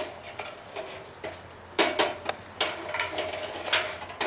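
Aluminum ladder clanking: several sharp metallic knocks with a brief ringing tone, the loudest about two seconds in, as it is climbed and bumped.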